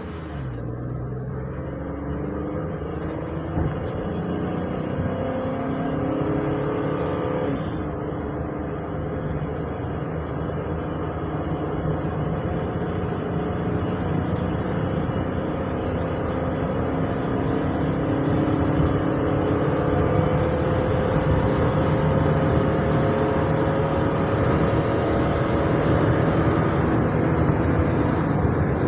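Ford Transit van's engine pulling hard under acceleration during a misfire test drive, its pitch climbing steadily. It shifts gear about seven seconds in, then climbs again for the rest of the stretch, with no misfire to be heard.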